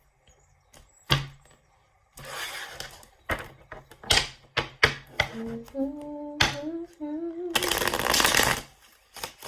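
Tarot cards being handled and shuffled: sharp card slaps and taps, with two rushing riffles of the deck, the louder one near the end. In the middle a woman hums a few notes of a song melody.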